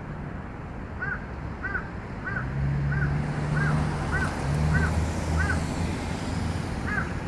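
A crow cawing in an even series, about one caw every 0.6 seconds: eight caws from about a second in, a short pause, then another caw near the end. A low steady hum runs underneath through the middle.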